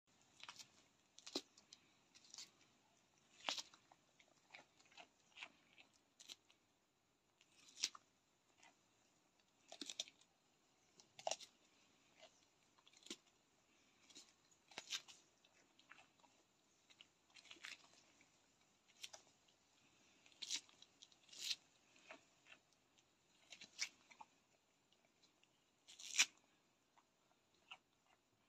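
A goat biting and chewing a fresh cucumber: sharp crunches at irregular intervals, roughly one every second or two, the loudest near the end.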